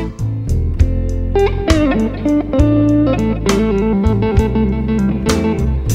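Slow blues rock band passage: an electric guitar plays a lead phrase of stepped notes over steady bass and drum hits.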